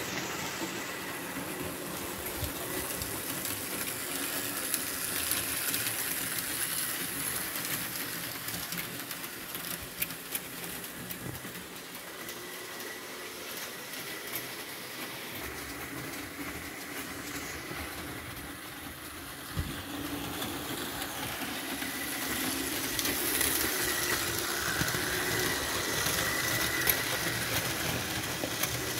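Model electric train running on its track: a steady running noise with a faint constant whine and occasional sharp clicks of the wheels over the rail joints.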